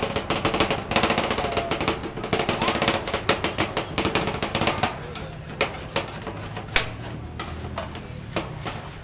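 Rapid clattering knocks of utensils at a street-food stall over a busy crowd murmur; the knocking thins out about five seconds in, when a low steady hum sets in.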